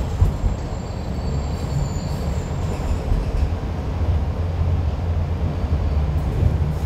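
Kawasaki-built light rail car running along the track, heard from on board: a steady low rumble of wheels on rail. A faint high whine is heard during the first three seconds.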